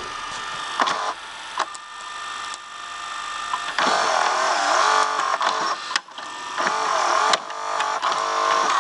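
Tape transport of a Sharp VC-M530 VHS video recorder winding the cassette tape, as in a rewind: motor and reels whirring with a few sharp mechanism clicks. About four seconds in, the whir turns into a louder wavering whine.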